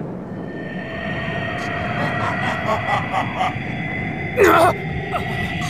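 Anime energy-aura sound effect of a powered-up Super Saiyan: a steady low rumble with high held tones building over it and faint crackling. A short sudden burst about four and a half seconds in.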